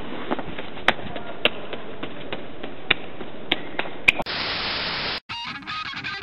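Steady hiss with a few sharp clicks, then about a second of loud static that cuts off abruptly. Strummed electric guitar music starts near the end.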